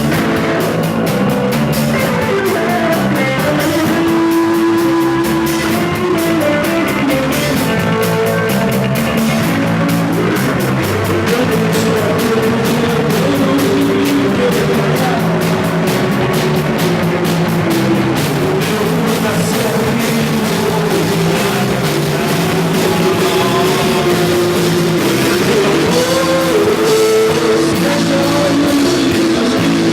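Rock band playing live: electric guitar and drum kit with cymbals, under a held melody line that slides between notes.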